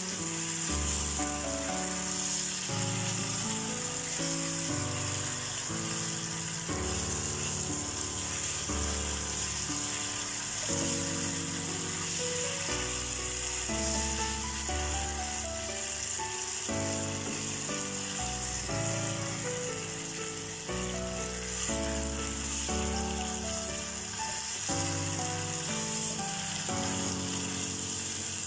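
Marinated chicken drumsticks frying with a steady sizzle in an open pan as the liquid cooks off, stirred with a wooden spatula. Background music with a melody and bass line plays throughout.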